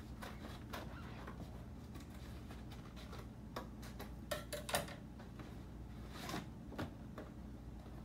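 Paper and plastic packaging rustling and crinkling as a padded shipping envelope is opened by hand, with a few sharper crinkles about four and a half and six seconds in, over a steady low hum.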